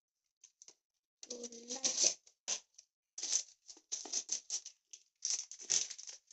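Football stickers and trading cards being handled: a run of quick crinkling and rustling noises, with a brief hum of a voice about a second and a half in.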